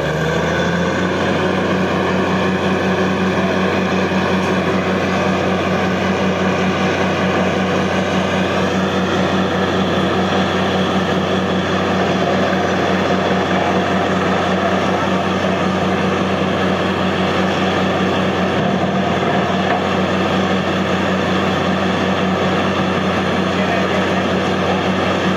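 Diesel engine of a truck-mounted borewell drilling rig running hard while it drills a tube well. It revs up just as the sound begins, then holds a steady, loud drone.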